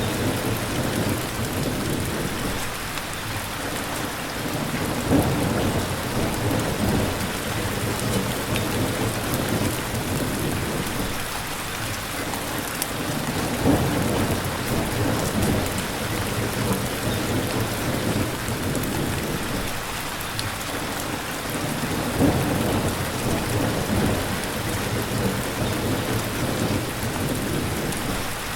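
Steady rain falling over a continuous low rumble, with a few brief louder splashes about 5, 14 and 22 seconds in.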